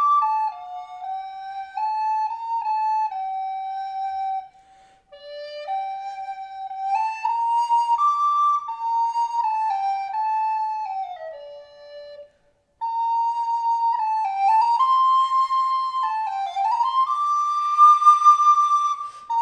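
Solo wooden recorder playing a slow melody improvised on Christmas carols, one note at a time, with two short breaks for breath and a long held high note near the end.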